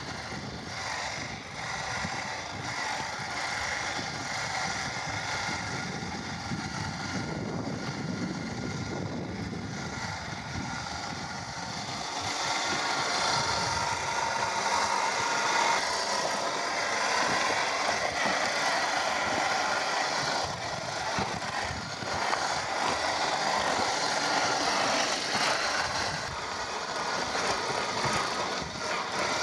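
Traxxas TRX-4 RC crawler's brushed 550 motor and geared drivetrain running with a steady whine. It gets louder about twelve seconds in.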